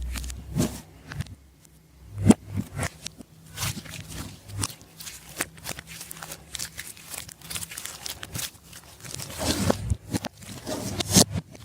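Slime being squished and worked by hand: a run of sticky clicks, crackles and small pops, busier near the end.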